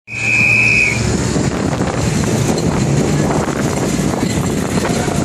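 Engines of a slow convoy of WWII-era military vehicles passing close by: a GMC 6x6 army truck, jeeps and a motorcycle, with a steady low rumble. A short, high steady tone sounds for about the first second.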